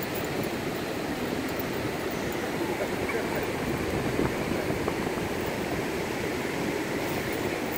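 Steady, even rush of ocean surf breaking on a sandy beach.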